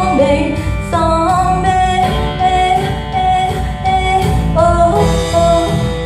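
A song with a woman singing held, wavering notes over a band with a steady beat, played as a listening test of Bandwidth BWV-2 audio gear.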